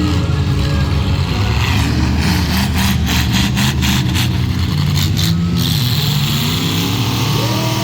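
Several demolition derby cars' engines running and revving, their pitch rising and falling, with a run of sharp knocks between about two and five seconds in.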